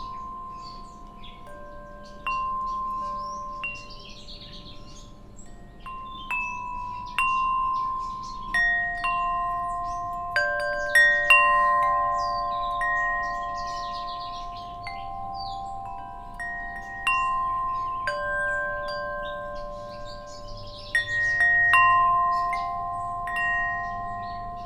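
Wind chimes ringing, struck irregularly so that several clear tones overlap and fade slowly. Birds chirp faintly in the background.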